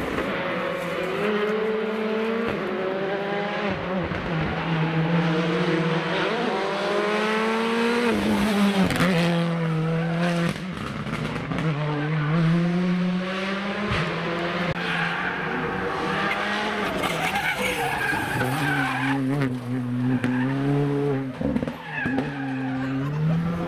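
Rally car engine being driven hard, the pitch climbing under acceleration and dropping sharply at each gear change or lift-off, again and again. Tyre squeal and skidding come through at times.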